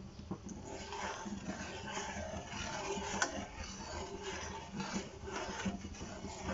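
Metal spoon stirring milk and vermicelli in a steel pan: irregular scraping and sloshing against the pan, with one sharp clink about three seconds in.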